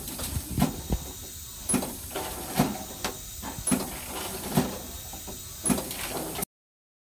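Kyoei KKS-520 air-driven fixed-length cutting machine cycling about once every two seconds, three times over: a sharp knock, a high hiss of compressed air, then a second knock about a second later.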